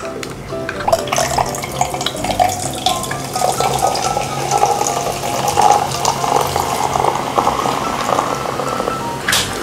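Cola being poured out, a continuous fizzing, splashing stream of liquid, with a short hiss near the end.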